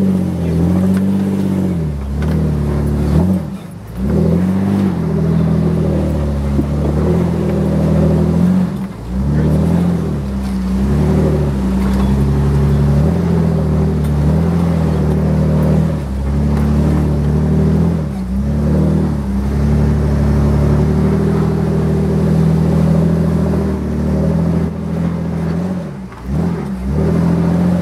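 Jeep Wrangler's engine working as it crawls up a rutted dirt trail, its revs rising and falling with the throttle and briefly dropping a few times.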